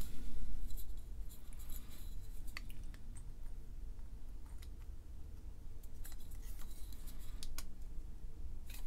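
Small scattered clicks and scrapes of a B7971 Nixie tube's pins being pushed into the socket pins of a circuit board by hand, with some rubbing and handling of the board near the start.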